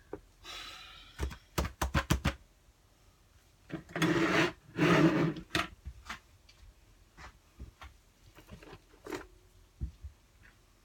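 Objects being picked up and set down on a work table: a short hiss, then a run of sharp clicks and knocks, and two louder half-second sounds with a low note about four and five seconds in, followed by scattered small clicks.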